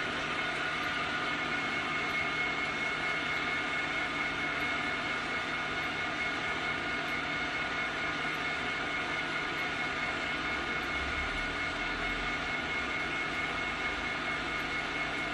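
Sixty-year-old Schaerer engine lathe running steadily, its headstock turning a heavy Ford F350 rear axle housing slowly at about 45 revs a minute, with a constant hum and a steady high whine from the drive.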